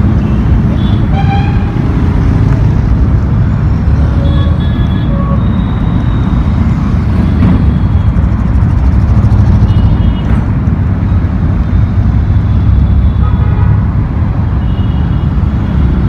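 Heavy mixed road traffic passing close: steady engine and tyre rumble from cars, motorcycles, auto-rickshaws and a small goods truck, a little louder about halfway through, with several short horn toots.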